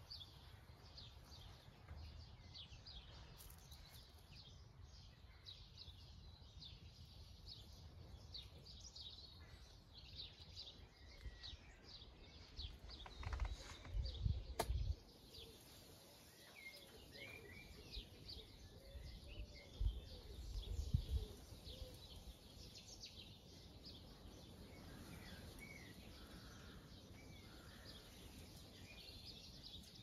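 Songbirds singing in a chorus of many short chirps and trills. Near the middle there are two bursts of low rumble on the microphone, the loudest sounds, and a single sharp click.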